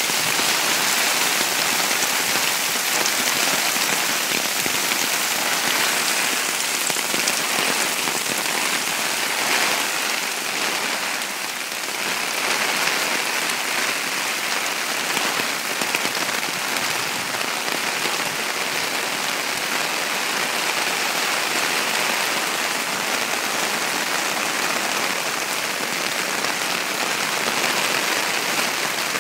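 Very heavy rain pouring down, a steady dense hiss that barely changes.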